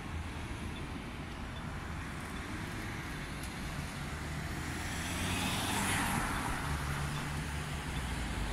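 City street traffic: a steady rumble of cars and engines, with a vehicle passing and swelling louder about five to six seconds in.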